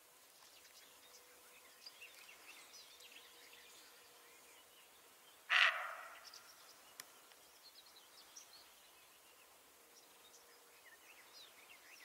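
A roe deer gives a single harsh bark about five and a half seconds in, the alarm call it makes when it is wary. Faint bird chirps carry on through the rest.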